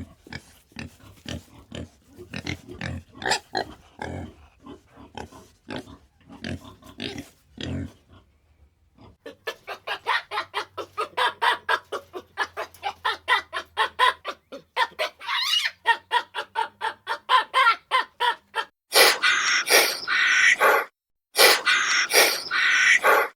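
Animal calls: a series of short grunts, then from about nine seconds a fast run of short chattering calls, about five a second, turning into loud high squeals near the end.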